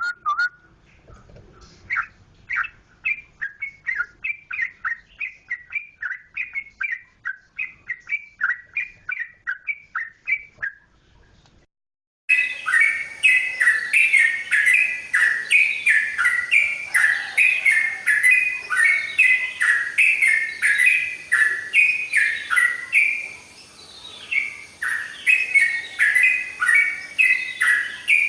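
Yellow-vented bulbul (trucukan) singing a run of quick, bubbly chirped phrases, about two a second. After a short break about 12 seconds in, the song comes back louder and more continuous.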